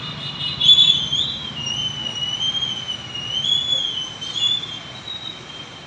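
A high whistling tone, held almost without a break and wavering slowly up and down in pitch.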